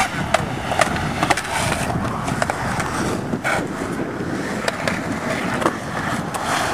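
Skateboard wheels rolling over concrete, with several sharp clacks of the board scattered through.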